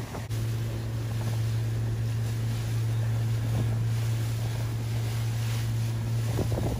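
A boat engine's steady low drone, with wind buffeting the microphone and the wash of choppy water.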